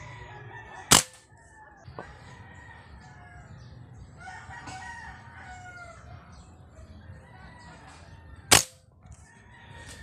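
Two sharp rifle shots, one about a second in and one near the end. A rooster crows in the background between them.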